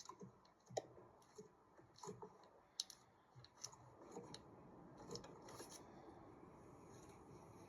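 Faint, scattered plastic clicks and scrapes as the power connector is worked onto the back of an H4 headlight bulb.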